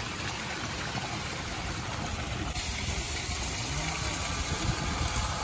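Water falling and splashing down a small artificial waterfall over a stacked-stone wall, a steady rush that grows a little brighter about halfway through.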